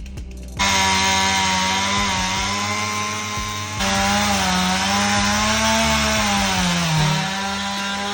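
Two-stroke chainsaw running at high revs, starting abruptly about half a second in. Its pitch wavers and sags toward the end as the chain bogs down cutting through downed timber.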